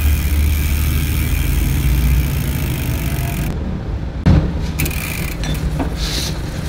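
Bicycle wheel spun by hand, its disc rotor turning through a Shimano MT200 hydraulic caliper with newly fitted pads, as a check that the brake does not drag. A steady low hum runs underneath, and there is a sharp knock about four seconds in.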